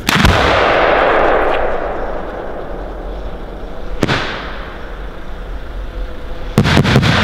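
A 5-inch titanium salute shell of shells fired from a mortar. A sharp launch bang comes first, with a rush that fades over a second or two. About four seconds in there is a single crack as the shell breaks open, and near the end a quick string of loud bangs from the titanium salutes.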